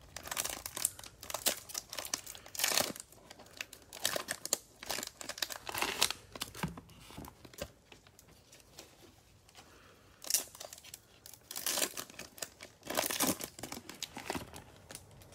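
Plastic cello-pack wrappers of trading cards crinkling and tearing as the packs are handled and ripped open, in crackly bursts with a quieter stretch about halfway through.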